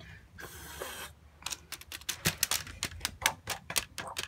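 Plastic LEGO pieces being handled: a brief rustle, then a quick run of sharp clicks and clatters, about five a second.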